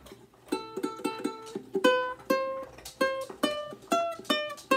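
Ukulele plucked with the fingers, playing a single-note riff on the A string: a quick repeated figure on the open string, then single notes climbing up the neck and stepping back down.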